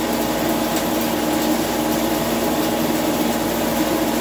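Electric hammer mill running steadily, a constant motor hum over a rushing noise, while it grinds wood waste and pours milled sawdust from its outlet chute.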